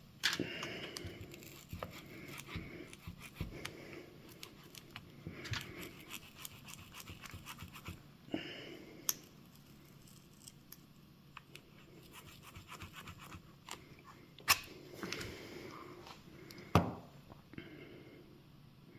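Prying tool scraping and clicking against a Nintendo Switch's glued-down battery and casing, with scattered small clicks and a few sharper knocks, as the strongly adhered battery is worked loose.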